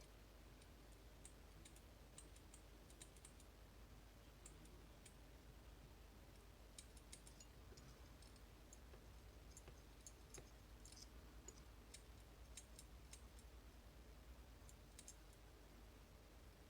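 Faint, irregular clicks of lock picks working the sliders inside a MIWA magnetic slider cabinet lock, coming in small clusters over a low steady hum.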